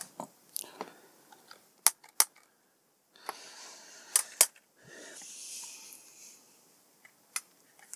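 Small plastic clicks and handling noise as hair straightener parts are pressed back together: about five sharp clicks, two quick pairs and a single one near the end, with two longer stretches of hissing noise between them.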